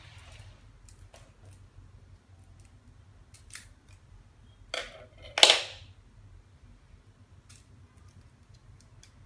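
Scissors snipping through a small plastic wrapper: two short cuts about five seconds in, the second the louder, amid light crinkling and clicks of the plastic being handled.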